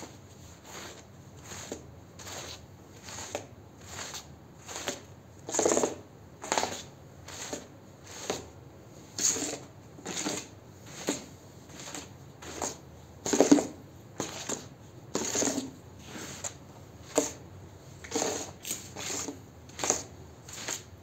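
Long-handled squeegee scraping over a soaked, foamy rug, pushing soapy water out of the pile: a wet swishing scrape repeated about twice a second, the strokes uneven in strength, the strongest a little past the middle.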